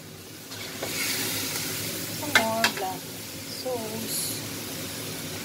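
Meat pieces sizzling in a hot wok while a metal spoon stirs them, scraping the pan and knocking against it twice about halfway through. The meat is being fried before it is stewed for adobo.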